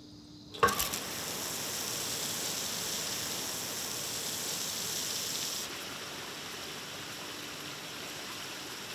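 Track sprinklers coming on with a sudden loud gush about half a second in, then a steady hiss of water jets spraying across the asphalt test track. The spray gets somewhat quieter about six seconds in.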